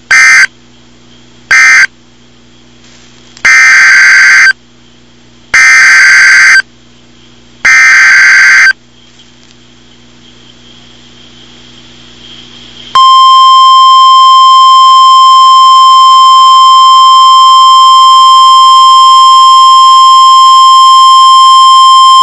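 NOAA Weather Radio Emergency Alert System data bursts and alert tone. First come two short end-of-message bursts, then three one-second SAME header bursts, each a harsh buzzing screech. After a pause of a few seconds, a loud, steady 1050 Hz warning alarm tone starts a little past halfway and holds, announcing a new warning.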